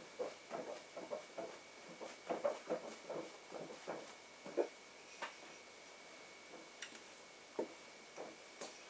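Soft pats and presses of hands flattening bread dough on a floured board: a quick run of small taps in the first half, then a few scattered ones.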